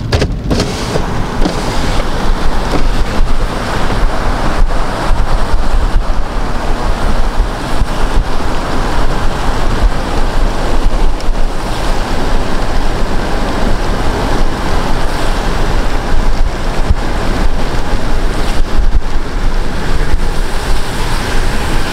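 Loud, steady rushing of wind buffeting the microphone through an open car window while driving, mixed with tyre hiss on the rain-soaked road.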